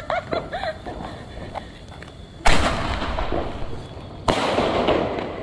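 Two firecrackers going off about two seconds apart, each a sudden bang followed by a second or more of hissing crackle; the first is the louder.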